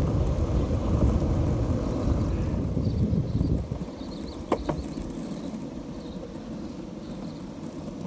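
Longboard wheels rolling on an asphalt path: a steady low rumble that drops away after about four seconds, leaving quieter rolling. About midway two sharp clicks, and faint high chirps in the background.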